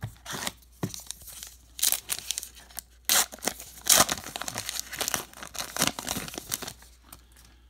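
A baseball card pack's foil wrapper being torn open and crinkled by hand: a run of sharp crackles, loudest about three and four seconds in, dying away near the end.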